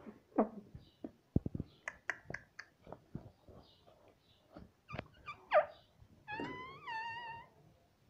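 Indian ringneck parakeet vocalizing at a mirror: short squeaky chirps that fall steeply in pitch, a run of quick clicks and taps, and from about six seconds in a longer wavering, nasal call.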